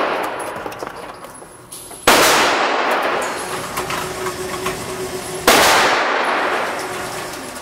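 Two gunshots in an indoor pistol range, about two and five and a half seconds in, each ringing on for a few seconds off the range walls. Between them a faint steady hum from the motorised target carrier running a paper target downrange.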